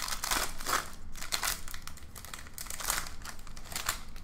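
Foil wrapper of a Pokémon trading card booster pack crinkling in a series of short rustles as it is torn open by hand.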